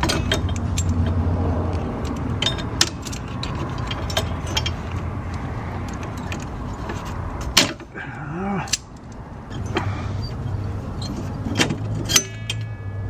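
Irregular metallic clicks, clinks and taps of locking pliers and drum brake shoe hardware (shoes, springs and hold-down pins) being handled and fitted on a rear brake backing plate, over a steady low hum.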